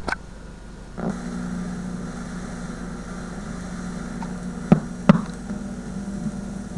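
VHS tape playing back blank, static-filled tape in SP mode: steady hiss with a low buzz that comes in about a second in and holds. Two sharp pops sound close together a little past the middle.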